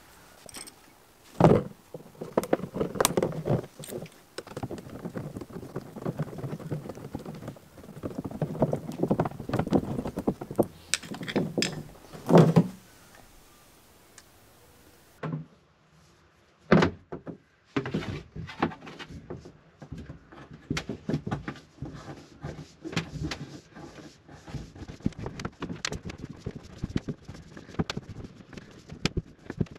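Hands-on handling noise as a rubber fuel hose and hose clamp are fitted to a plastic fuel tank and the tank is moved about: a busy run of small knocks and clatter, with a few sharp thunks, the loudest about a second and a half in, near the middle and a little after it.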